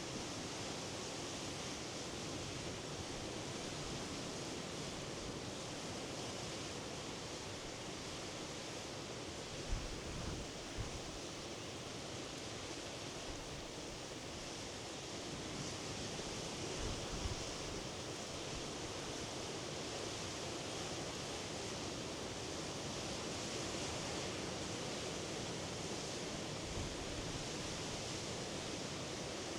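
Sea surf washing against the shore: a steady, even rush of breaking water. A few brief low thumps, about 10 and 17 seconds in, are wind buffeting the microphone.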